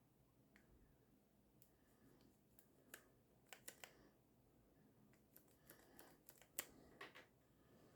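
Faint, scattered clicks and taps of small parts being handled while the tape mechanism of a Technics RS-BX747 cassette deck is reassembled, with a cluster about three and a half seconds in and the loudest click about six and a half seconds in.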